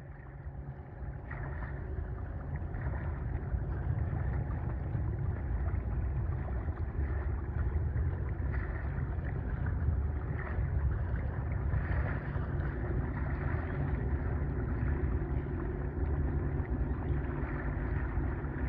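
Wind buffeting the microphone: a steady, gusting low rumble that grows about two seconds in, with a softer wash of water over it.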